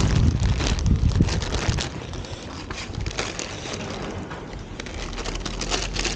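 Dogs eating, with irregular crunching and clicking. Wind buffets the microphone for the first two seconds or so.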